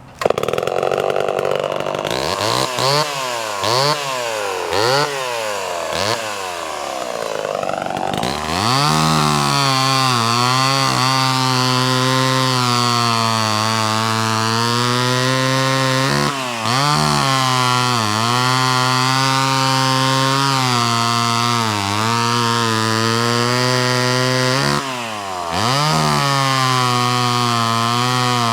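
Vintage Homelite XL12 chainsaw's single-cylinder two-stroke engine running. It is revved up and down several times in the first few seconds, then held at high speed, with two brief drops in revs partway through and near the end.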